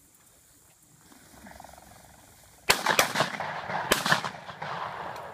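Shotgun blasts at flying birds: a quick cluster of shots about two and a half seconds in, then a second cluster about a second later, the reports trailing off slowly.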